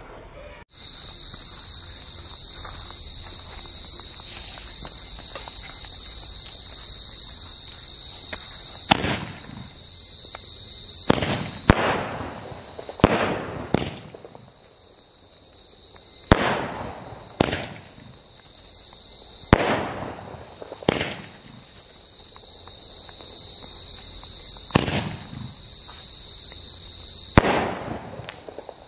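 Ajanta 'Ben 10' ten-shot fancy sky-shot firework cake firing: from about nine seconds in, a string of loud bangs at uneven gaps, some in quick pairs, each with a short trailing tail. Crickets chirp steadily underneath.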